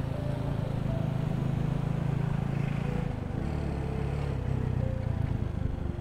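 Motorcycle engine running steadily while riding, heard from the rider's own bike. The engine note drops a little about three seconds in.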